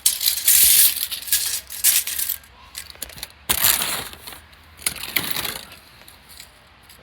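Metal tape measure being handled, pulled out and retracted, rattling and clinking in several short bursts, the loudest about half a second in and again just past halfway.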